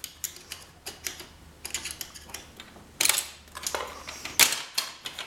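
A flat-head screwdriver prying at a small metal C-clip on an inkjet printer's paper feed roller shaft. Many sharp clicks and ticks of metal on metal, with louder scrapes about three seconds in and again about four and a half seconds in.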